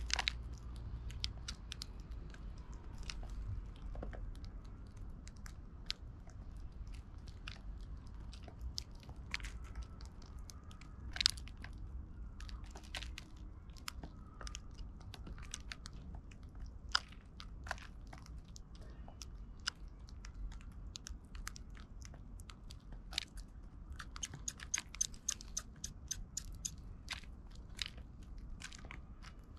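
Eurasian tree sparrows pecking seed in a wooden feeding tray: a steady patter of sharp, irregular beak taps and seed crunches, busiest near the end, over a low steady rumble.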